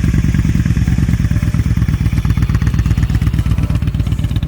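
2015 Yamaha Bolt's air-cooled V-twin running steadily through its newly installed exhaust, with a rapid, even pulse.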